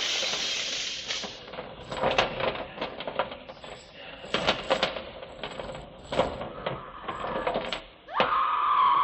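Haunted-house sound effects: a hiss, then a run of clattering metallic clinks and knocks. About 8 seconds in, a tone rises quickly and then holds.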